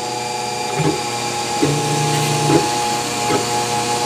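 Wanhao Duplicator 4 3D printer's stepper motors whining in pitched moves that change tone about once a second as the print head lays down a small part, over a steady hum.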